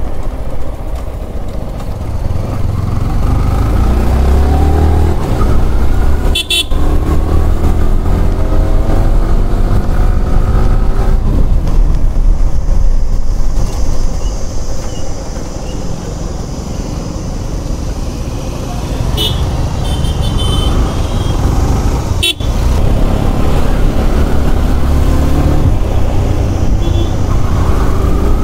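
Yamaha R15's 155 cc single-cylinder engine running under way, its pitch rising in steps as it pulls through the gears, over heavy wind rumble on the microphone. A vehicle horn toots a few times about two-thirds of the way in.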